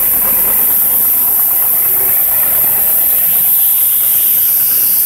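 Blue wheeled tractor's diesel engine running steadily at low speed close by.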